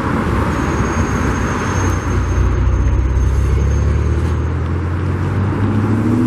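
Steady road traffic noise from passing cars, with a deeper rumble that swells through the middle and a faint high whine above it.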